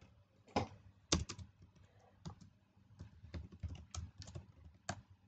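Computer keyboard typing: irregular keystrokes with short pauses between them.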